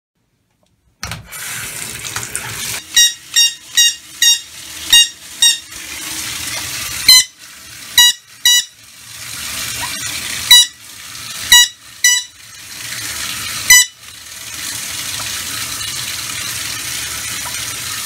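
Water running from a bathtub tap, with a sun conure giving about a dozen loud, short, piercing screeches over it between about three and fourteen seconds in.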